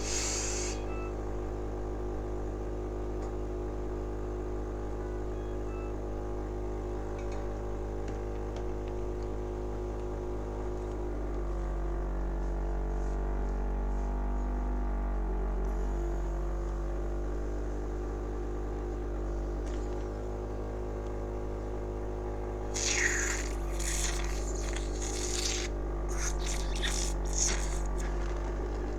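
Cough assist machine (mechanical insufflator-exsufflator) running with a steady motor hum. The tone of the hum shifts about eleven seconds in and settles back near twenty seconds. A cluster of short hissy bursts and clicks comes about twenty-three seconds in.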